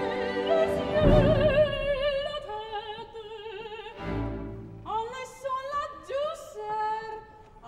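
A woman singing an opera aria with wide vibrato over an orchestra, with strong orchestral chords about one and four seconds in and short sung phrases after the second.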